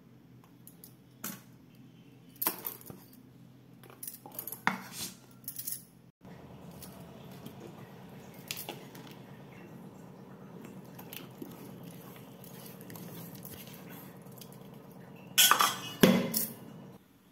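Kitchen handling sounds: scattered light clicks and knocks, then a steady low hum, and near the end a loud clatter of utensils scraping and knocking against steel and glass bowls as the ground moong dal batter is moved.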